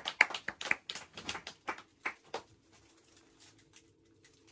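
Hand clapping, sharp separate claps that thin out and stop about two and a half seconds in, leaving quiet room tone with a faint steady hum.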